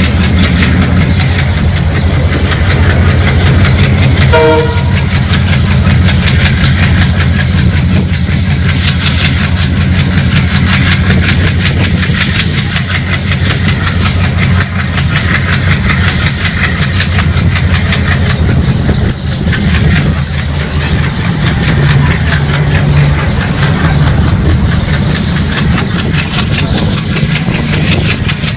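WDM-3A ALCO four-stroke diesel locomotive running under power, its engine giving a steady low chugging drone, with the train's wheels clattering over the rail joints.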